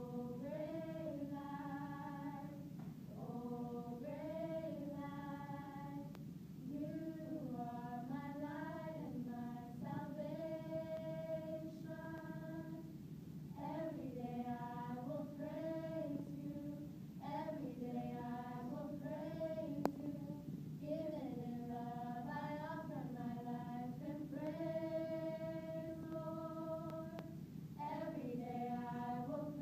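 A small choir, mostly women's voices, singing in harmony in phrases of held and gliding notes. A single sharp click comes about two-thirds of the way through.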